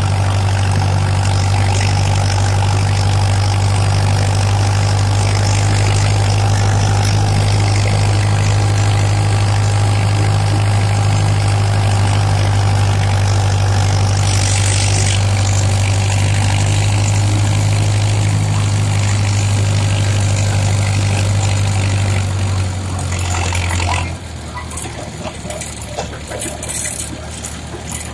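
Steyr 8073 tractor's diesel engine running at a steady, even drone. About 24 seconds in the drone cuts off suddenly, leaving quieter background noise with a few scattered clicks.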